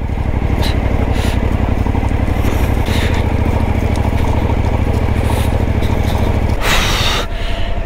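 Motorcycle engine pulling steadily at low speed over loose gravel, with tyres scraping through the stones. About seven seconds in, a short loud rush of noise, and the engine eases off.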